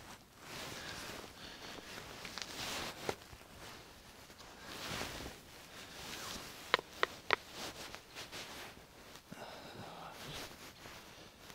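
Camp gear being handled and taken apart: rustling and light knocks, with three quick sharp clicks in a row a little past halfway.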